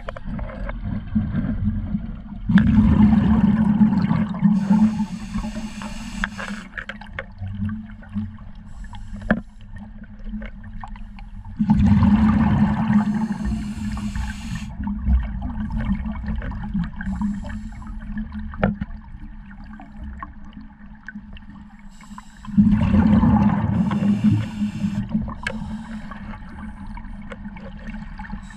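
Scuba diver breathing underwater through a regulator: three gurgling bursts of exhaled bubbles, each about three seconds long and roughly ten seconds apart, with quieter stretches and faint clicks between breaths.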